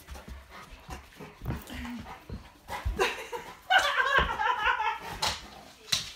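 A large dog play-wrestling with a person on carpet, with scuffling and bumps throughout. Past the middle comes about a second of high, wavering dog vocalising, the loudest part.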